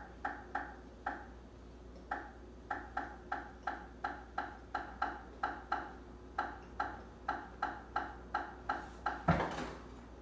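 A run of short, sharp clicks or snaps, about two to three a second with a couple of brief pauses, followed by a louder thump near the end.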